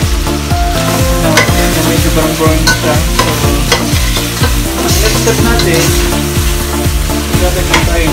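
Chicken pieces and ginger sizzling as they sauté in a stainless steel stockpot, stirred with a spatula that clicks and scrapes against the pot. Steady background music plays underneath.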